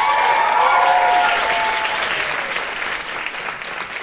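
Audience applauding, with a few whoops in the first couple of seconds, the clapping slowly fading.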